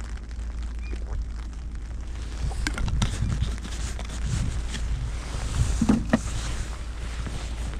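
Wind buffeting the microphone, a steady low rumble, with a few sharp clicks and knocks of handling at about three seconds and again about six seconds in.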